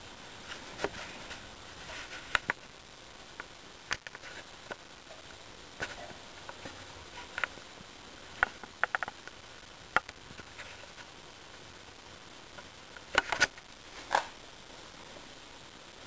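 Irregular sharp clicks and taps over a faint steady hiss, with a quick cluster of louder clicks near the end.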